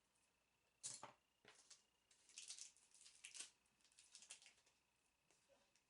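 Faint, scattered clicks and crackles of makeup brushes and their plastic packaging being handled, one sharper click about a second in and a quick run of them a little later.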